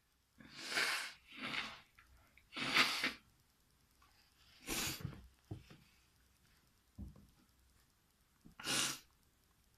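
A person sneezing: five short, breathy bursts, the loudest about three seconds in and the last near the end.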